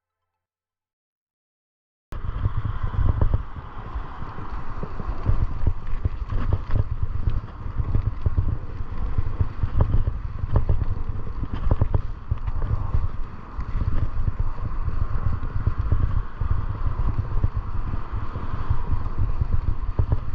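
Wind buffeting the microphone in a heavy low rumble, with road and tyre noise and scattered clicks, as heard while riding a bicycle; it cuts in suddenly about two seconds in after total silence.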